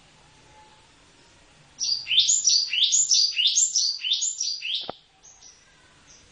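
Cinereous tit (gelatik batu) singing: a quick run of about ten clear whistled notes, each sliding down in pitch, lasting about three seconds, followed by a few faint short high chirps.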